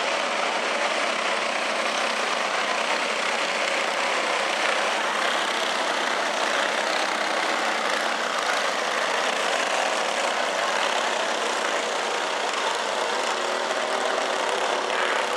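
A pack of dirt-track racing karts with single-cylinder four-stroke clone engines running hard at speed, their engines blending into one steady, unbroken sound.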